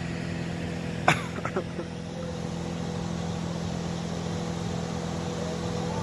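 Engine of a bungee-jump hoist running with a steady hum. A sharp click about a second in, followed by a few faint knocks.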